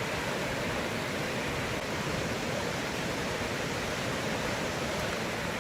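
Flash-flooding river: fast floodwater rushing in a steady, even roar.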